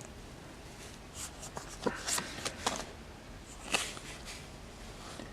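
Pokémon trading cards being handled and slid against one another: a few soft rustles and flicks, spaced apart.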